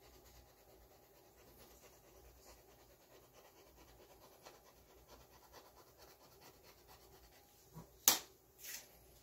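Faint room tone, then about eight seconds in a short, sharp rustle and two softer ones: the plastic release film of an adhesive magnetic sheet being handled and peeled away as the sheet is laid on the bed.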